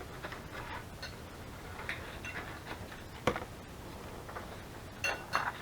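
Light handling of paper and craft tools on a tabletop: soft scattered rustles and ticks, one sharp click about three seconds in, and a few more clicks near the end.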